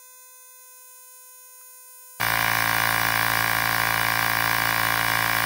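A faint steady tone, then about two seconds in a cordless electric tyre inflator's compressor comes in loud and runs steadily, pumping a bicycle tyre up to its 65 psi set point.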